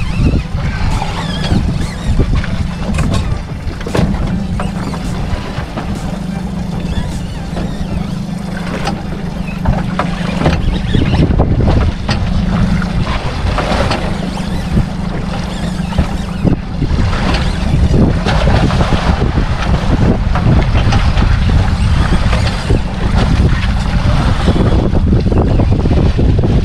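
Wind buffeting the microphone on a small boat at sea, with water slapping the hull and scattered short knocks over a steady low hum.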